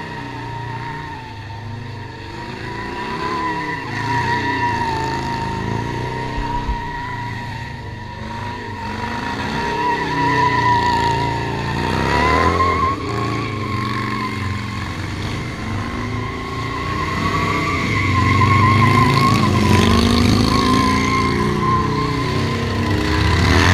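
Motorcycle engines revving up and down while a rear tyre spins and squeals in a long, unbroken wavering squeal as the bikes do donuts on wet asphalt. It gets louder in the last few seconds as a bike circles close.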